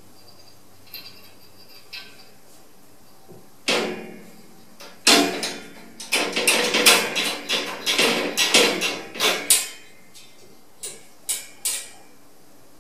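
Metal sliding bolt latch and wire cage door rattling and clanking as a cat paws at the latch: a sharp clank about four seconds in, a dense run of clanks over the next few seconds, then three separate clicks near the end.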